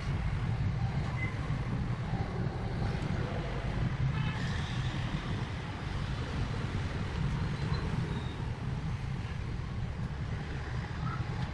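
Restored old generator engine running steadily with an even, low-pitched engine note.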